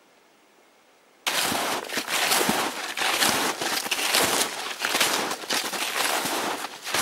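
Snowshoes crunching through snow with each walking step, close to the microphone. The crunching starts suddenly about a second in and stops abruptly near the end.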